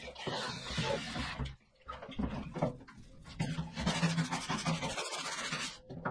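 Scrubbing brush rubbing back and forth over the wet aluminium floor of a small boat compartment, in uneven strokes with short pauses, stopping near the end.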